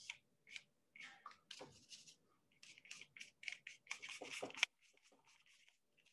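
Paintbrush scratching and dabbing on paper in short, irregular strokes, faint; a longer run of strokes ends about four and a half seconds in.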